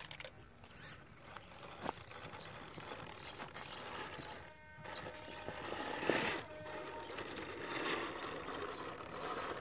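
Axial SCX RC rock crawler's electric motor and geared drivetrain whining with a thin high tone under throttle, with the tyres scrabbling and grinding on rock. The drive cuts out briefly about halfway, and the loudest burst of tyre scraping comes just after it.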